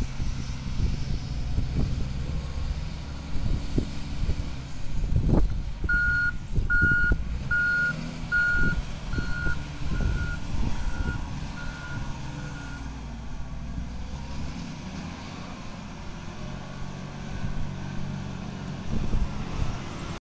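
Hitachi ZW220 wheel loader's diesel engine running under load as it works the coal pile. Partway through, its reversing alarm beeps about nine times, a little more than once a second: the loader is in reverse, backing away from the pile.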